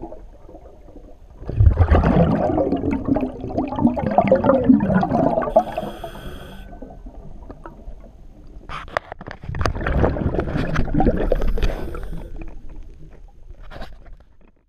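Scuba diver breathing through a regulator underwater. Exhaled bubbles rush out twice, for several seconds each time, with a short hiss of inhalation through the regulator between them about six seconds in.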